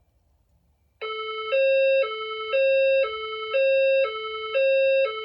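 Fire alarm speaker-strobe (an SPSR) sounding the alert tone that begins about a second in. A lower note and a louder, higher note alternate, each about half a second long. It is the signal tone that comes before the voice message and marks a reported event in the building.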